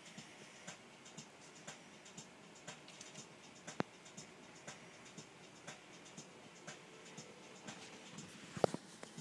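Faint scratching and rustling on a bed's duvet, with a sharp click near the middle and another near the end.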